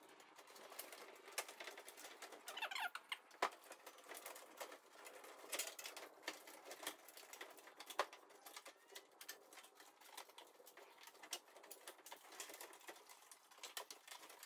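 A steel Model T Ford door and its hinge hardware being handled and fitted against the car body: faint, scattered clicks and taps of metal on metal, with a couple of sharper knocks and a short squeak about two and a half seconds in.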